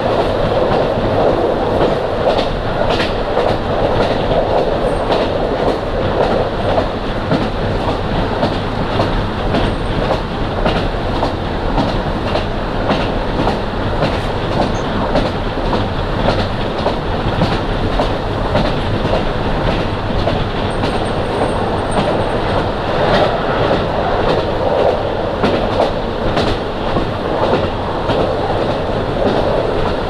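Running sound from inside a KiHa 40 diesel railcar under way: steady engine and wheel noise, with the clickety-clack of the wheels passing over rail joints throughout.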